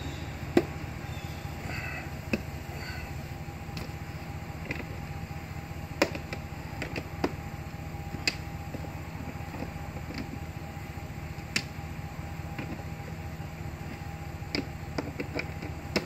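Scattered short, sharp clicks and taps of a nut driver turning and seating the screws of a plastic RV shore power cord hatch, about ten in all, over a steady low background hum.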